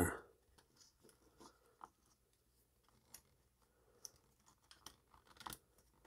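Faint, scattered clicks and taps of a plastic garage door keypad and a 9-volt battery being handled as the battery is fitted into the keypad's battery compartment, a few more near the end.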